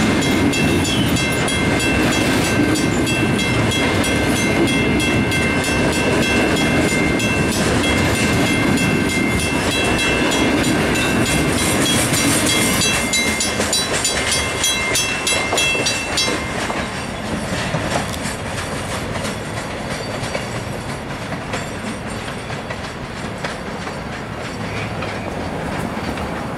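Loaded stone-train hopper cars rolling past with wheel clatter and rumble, while a grade-crossing bell rings steadily. The rumble thins out after about 13 seconds as the train passes, and the bell stops about 16 seconds in.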